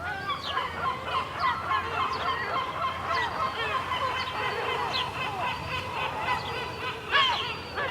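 A flock of gulls calling all at once, many short overlapping squawks and yelps, with a louder burst of calls about seven seconds in.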